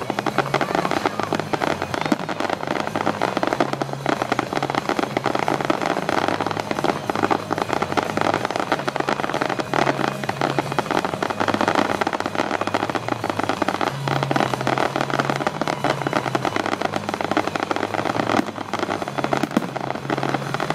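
A fireworks display: shells bursting overhead with a dense, continuous barrage of bangs and crackles.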